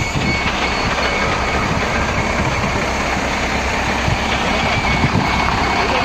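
Fire truck's engine idling, a steady low hum under a constant wash of noise.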